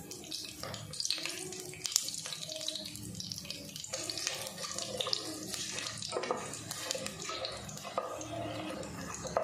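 Fennel seeds, curry leaves and whole spices sizzling in hot oil in an aluminium pressure cooker, with scattered small pops, as they are stirred with a wooden spatula.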